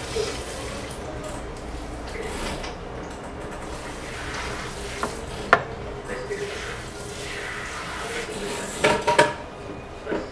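Barbershop room sound of indistinct background voices, with clinks and knocks of the barber's metal tools and implements: one sharp click about five and a half seconds in and a cluster of knocks near the end.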